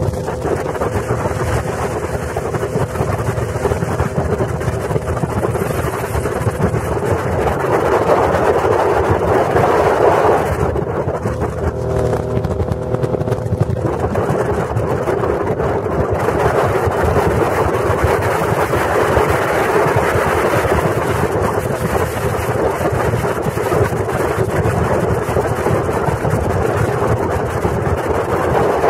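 Motorboat under way at speed: a steady rush of engine, water and heavy wind buffeting on the microphone. About halfway through the wind eases for a few seconds and a steady engine hum comes through before the rush returns.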